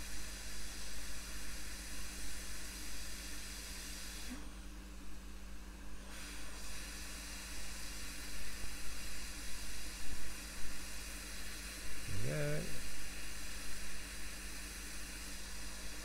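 Quick 861DW hot air rework station blowing a steady hiss of hot air onto a small surface-mount chip, melting its solder to fix the replacement part to the board. The hiss thins for a moment about four seconds in and stops near the end.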